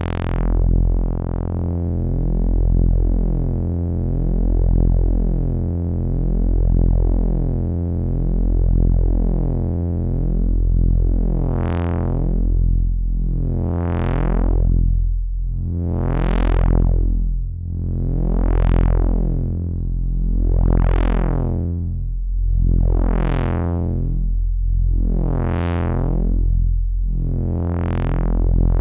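Low, buzzy synth note played through the CubuSynth Dual CS-20 VCF, an MS-20-style filter. The tone is fairly steady at first. From about ten seconds in, the filter cutoff sweeps open and closed about every two and a half seconds, giving a rhythmic 'wah' brightening and darkening.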